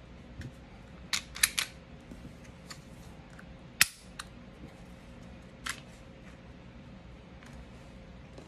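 Sharp mechanical clicks from the parts of a Smith & Wesson M&P Shield Plus 9mm pistol frame being handled: three quick clicks about a second in, the loudest single click a little before the middle, and one more about two seconds after it.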